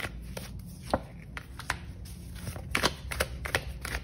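Oracle cards being handled and drawn from the deck, with a scattering of soft clicks and taps as cards slide and are laid down.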